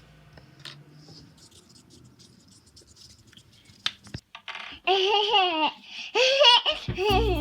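Faint rustling, then from about five seconds in a high-pitched voice making three long, wavering, drawn-out sounds.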